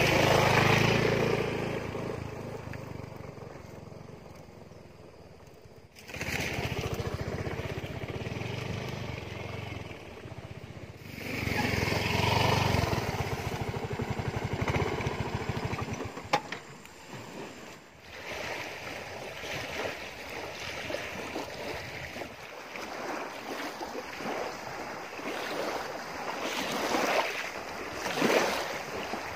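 Small motor scooter engine running at low speed along a rough track, through a few cuts. After about 18 seconds the engine is gone, and wind and small waves lapping at a lakeshore take over.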